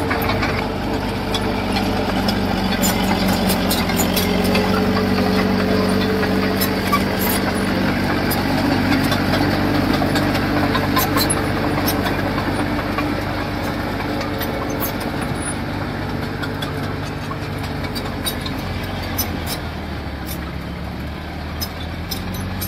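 Diesel engine of heavy construction machinery running steadily, its speed rising and falling a little in the middle, with scattered sharp clanks.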